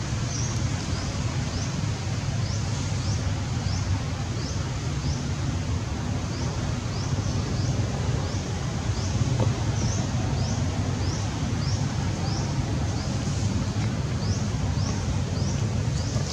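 Outdoor ambience: a steady low rumble and hiss, with a short high chirp repeating about twice a second.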